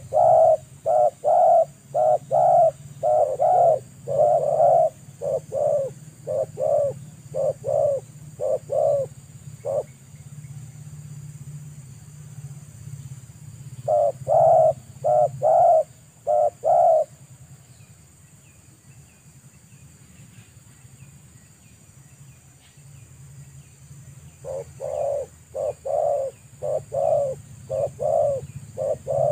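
Spotted doves cooing in runs of short, low coos, about two a second. The runs come at the start, again about 14 seconds in, and again from about 25 seconds in. Faint high chirps of small birds sound in the pauses, over a steady low hum.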